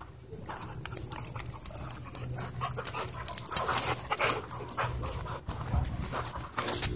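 Dogs panting close to the microphone in a string of quick breaths.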